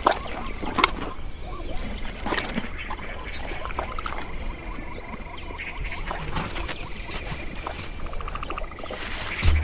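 Savanna nature ambience in a cartoon soundtrack: a high insect chirp repeating about three to four times a second over a low steady rumble, with scattered small clicks. A short rapid rattling call comes near the end, followed by a louder swell.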